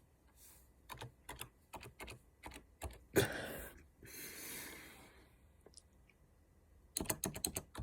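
Computer keyboard typing in bursts of quick clicks, pausing for about a second and a half before a fast run near the end. About three seconds in there is a single sudden, louder sound, followed by a short hiss that fades away.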